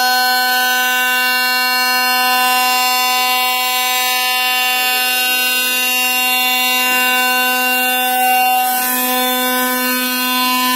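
Cosmec Conquest 515 CNC machining centre milling bakelite: the spindle and cutter give a loud, steady high-pitched whine with several tones at once.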